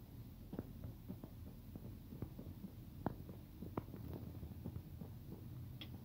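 Handling noise from a handheld camera being moved around the cab: a low rumble with scattered light clicks and ticks, and one brief high chirp near the end.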